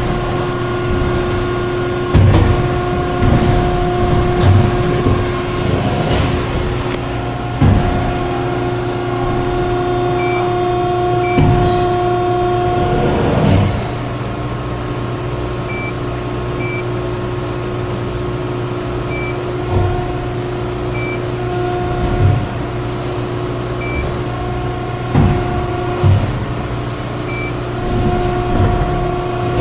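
Hydraulic injection blow molding machine running: a steady hum with a whining pitched tone, broken by clunks every few seconds as the machine cycles. Short high electronic beeps sound now and then from about a third of the way in.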